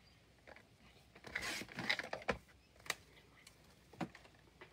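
Kaisercraft sliding paper trimmer: the blade carriage is pushed along its rail, cutting through card in one rasping stroke about a second in, followed by a few sharp clicks.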